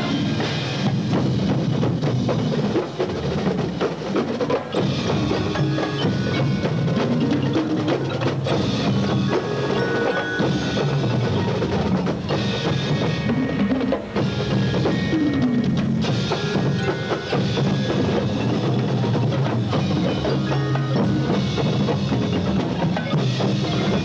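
Marching band percussion section playing a drum feature: the drumline's snare, tenor and bass drums beating a steady rhythm, with the front ensemble's mallet keyboards and timpani ringing over them.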